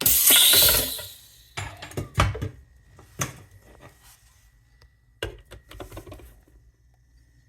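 A loud hiss of R134a refrigerant venting, fading out within about a second, as the charging hose is taken off the refrigerant can. Scattered metallic clinks and knocks follow as the can and fittings are handled.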